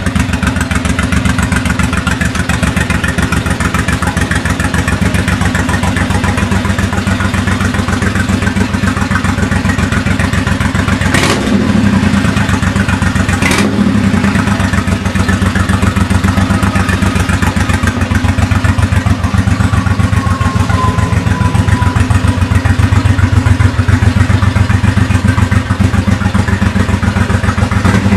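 A 1988 Honda Shadow 1100's V-twin running at idle through Cobra drag pipes, a loud, steady, lumpy beat of exhaust pulses. Two sharp clicks sound about two and a half seconds apart near the middle.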